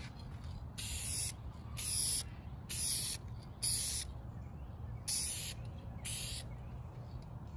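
Aerosol can of Dupli-Color vinyl and fabric spray paint giving six short sprays, each about half a second: four about a second apart, then a brief pause and two more. It is laying a fresh coat over a plastic interior trim panel.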